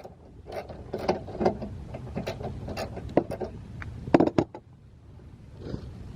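Irregular clicks and knocks of hands and a tool working at a car headlight's top 10 mm mounting bolts, with the loudest knocks about four seconds in.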